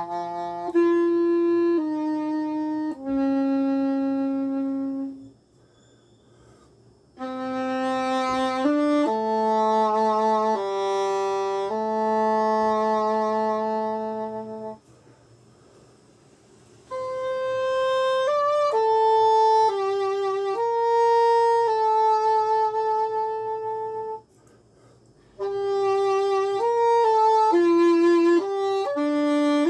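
Solo English horn playing a slow melody of long held notes with no accompaniment, pausing three times for a second or two.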